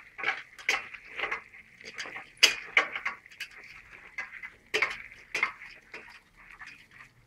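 A spoon stirring fava beans in a stainless steel pot, with irregular scrapes and clinks against the pot, some of them loud, over a faint steady hiss.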